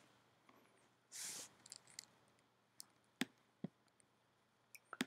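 A handful of faint, sharp clicks from about three seconds in, from a computer mouse being clicked, with a short soft hiss about a second in.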